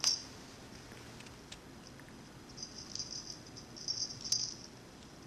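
A small bell jingling in short bursts as a kitten bats and bites a feather wand toy, with a few light taps and clicks, the loudest at the very start.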